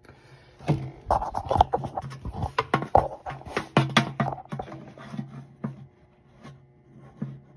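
Irregular knocking and scraping as a rod is pushed down and worked around inside a plastic fuel tank, with handling noise. The knocks are thickest in the first few seconds and thin out near the end.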